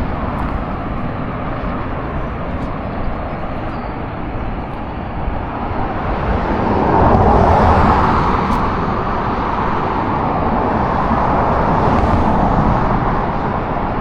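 Road traffic passing close by: a steady rush of tyre and engine noise, swelling louder about halfway through as a vehicle goes past and again near the end.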